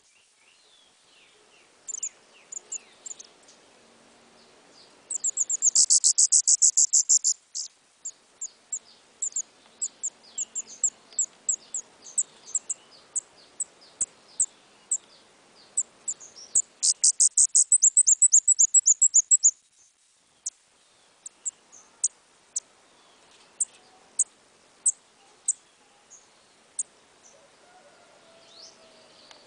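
Small songbird singing: very high, rapid trills of repeated sharp notes lasting two to three seconds each, loudest about a fifth of the way in and again past the middle, with single high chips scattered between.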